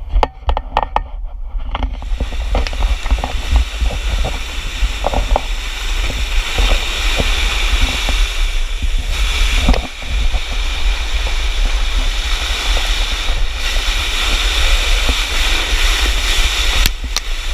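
A board sliding down a slope of loose volcanic gravel: a few crunches as it gets going, then, about two seconds in, a steady rushing scrape of gravel with wind buffeting the microphone, easing briefly once about halfway.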